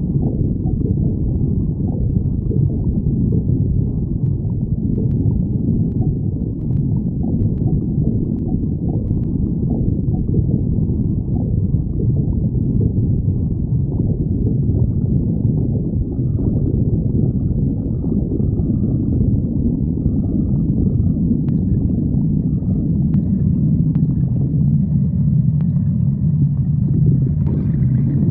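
A person's stomach growling and gurgling in low, continuous rumbling that settles into a steadier low drone near the end.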